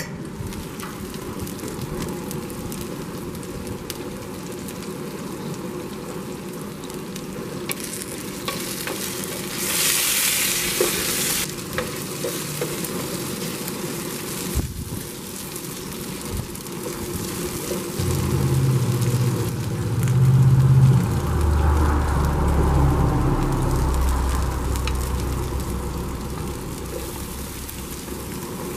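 Chicken thighs sizzling in oil in a steel paella pan on a gas grill, stirred and turned with a wooden spoon. The sizzling grows louder for a moment about ten seconds in. A strong low rumble runs through the second half.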